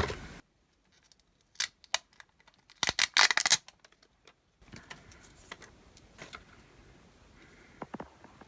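A few short clicks and taps of small parts being handled, with a brief cluster of louder clicks and rattles about three seconds in, over otherwise near-silent background.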